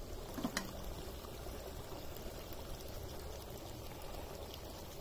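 Country chicken pepper fry simmering in a pot over a wood fire: a steady bubbling, with one light click about half a second in.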